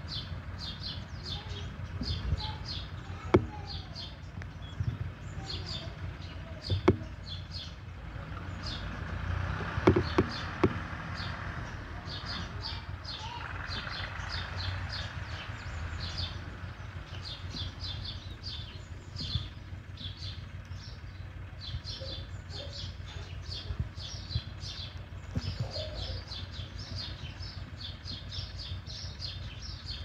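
Small songbirds chirping, short high chirps repeating several times a second without a break, over a low rumble. A few sharp clicks stand out, the loudest about three, seven and ten seconds in.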